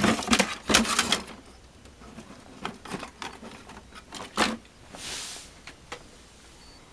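Salvaged electronic parts being rummaged through and handled: a quick clatter of clicks in the first second, then scattered single clicks and a brief rustle about five seconds in.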